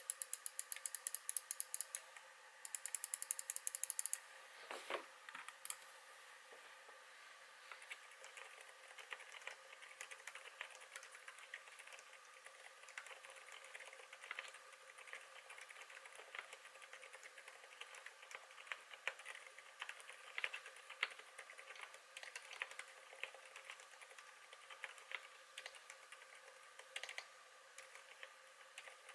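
Typing on a KBD8x MKII mechanical keyboard with lubed MX Zilents silent tactile switches: soft, incredibly quiet keystrokes in a steady irregular stream. In the first four seconds there are two quick runs of rapid, louder clicking.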